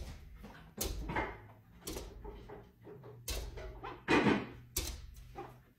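A series of irregular knocks and bumps against a glass sliding door, with a longer, fuller thump a little past the middle.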